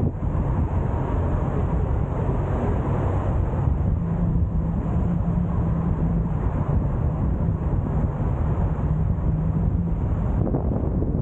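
Car driving on a road: a steady rush of wind and road noise, with a low hum held from about four to ten seconds in.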